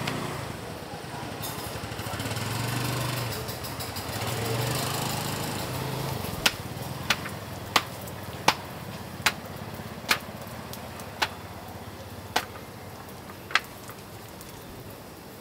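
A steady low hum like a small engine runs under street-market noise. From about six seconds in come roughly nine sharp knocks, one every half to one second, while roti dough is worked by hand on a stainless-steel counter.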